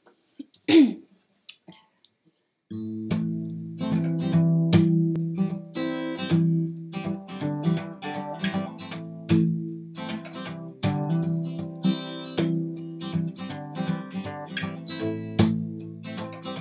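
Acoustic guitar strummed in a steady chord progression, starting about two and a half seconds in after a few short knocks.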